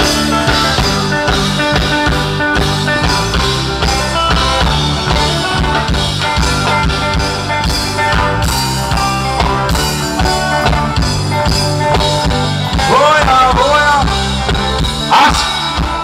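Live band playing through a large PA system, with a drum kit, percussion, bass and electric guitars keeping a steady beat. A few bending, wavering notes rise above the band near the end.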